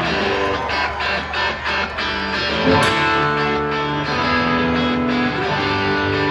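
Live rock band playing through a concert PA: strummed electric guitars and bass over a steady drum beat, heard from the audience.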